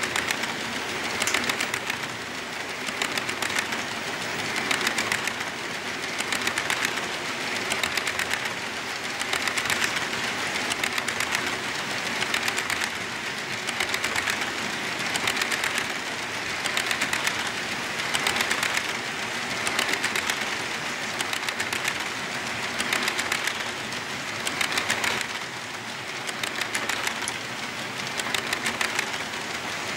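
HO scale model tank cars rolling past on the track, their wheels clicking rapidly and steadily over the rails, the sound swelling and fading about every two seconds.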